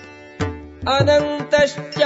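Indian devotional background music: tabla strokes over sustained pitched string tones, growing louder about a second in.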